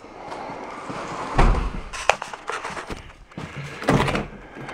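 Grand Caravan minivan's driver door being unlocked and opened: a heavy thump about a second and a half in, a sharp latch click, then more knocks and clunks near the end.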